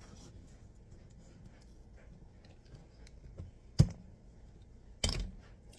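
Kitchen handling noises, with small ticks, one sharp knock a little before four seconds in and a brief clatter about five seconds in.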